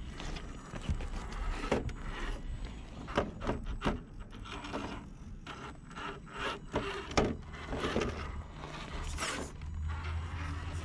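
HPI Venture radio-controlled rock crawlers clambering over boulders and loose stones: irregular scraping and knocking of tyres and chassis against rock.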